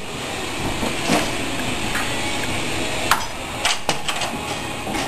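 Scattered knocks and clatters from renovation clean-up, with debris and scrap being handled on the floor: a few sharp hits spread through, a cluster of them near the end, over a steady background hiss.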